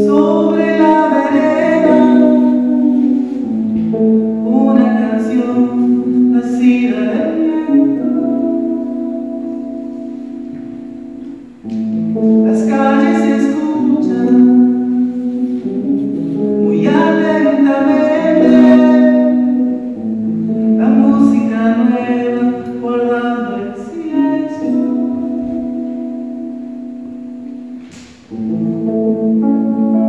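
A man singing to his own acoustic guitar: long held notes in phrases that each fade away, with a new phrase starting sharply about twelve seconds in and again near the end.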